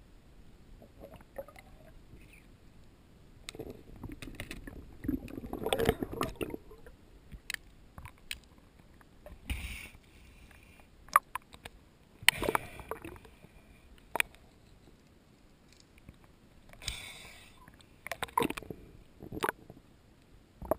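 Water sloshing and gurgling as heard through an action camera's underwater housing, with scattered sharp clicks and knocks. It is busiest about four to seven seconds in, with further knocks and splashy bursts later on.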